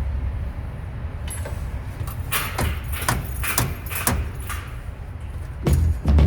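Irregular metallic clinks and clanks, about a dozen, from tools and hardware being handled while a V-belt is fitted on an air handling unit. They run over a steady low hum, and a louder low sound comes in near the end.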